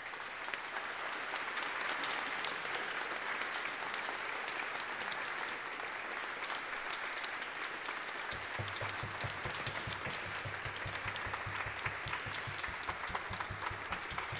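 Audience applauding: a steady, sustained round of clapping from many hands. From about eight seconds in, a regular low thumping joins it.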